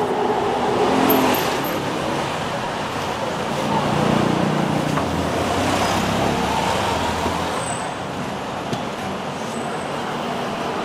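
Street traffic, with a motorbike engine passing close by a few seconds in.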